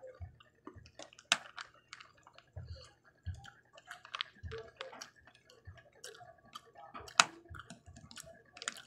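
Sharp irregular clicks of wooden chopsticks tapping together and against hard candy-coated peanut M&M's on a plate, with soft chewing in between.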